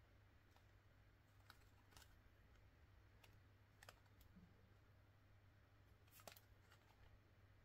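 Near silence over a faint steady hum, with a few faint scattered clicks and taps from a UNO card box and its cards being handled, a small cluster of them about six seconds in.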